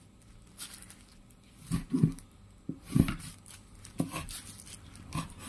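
A cleaver chopping red chilies on a wooden chopping board: a handful of separate knocks, roughly one a second.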